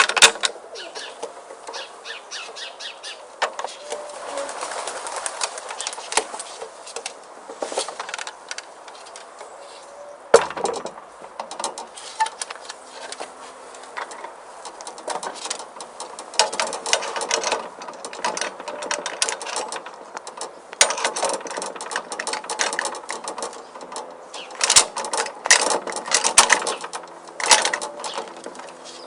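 A parrot squawking and chirping among repeated clicks and rattles.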